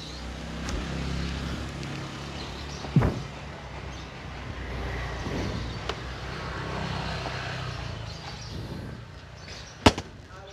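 Low rumble of street traffic, broken by two sharp knocks, one about three seconds in and a louder one near the end.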